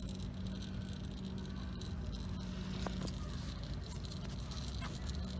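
Engine oil trickling from an open drain plug hole into a drain pan, a steady pattering, over a constant low hum.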